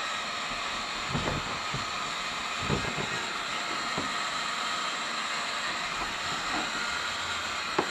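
Heat gun running, a steady rush of blown air, with a few light knocks, the sharpest near the end.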